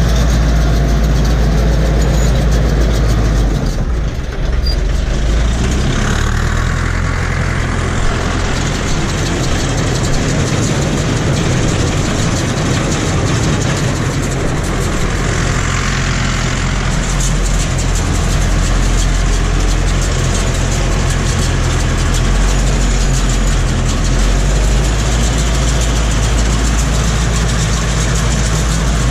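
Tractor engine running steadily while it pulls and drives a SIPMA PS 1312 Power Cut baler through the PTO shaft during hay baling. The level dips briefly about four seconds in.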